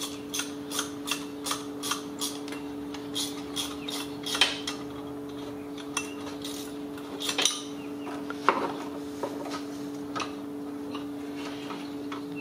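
Metal clicks and clinks from hand tools working a water pump pulley bolt loose, a click about every half second at first, then scattered clinks. A steady hum runs underneath.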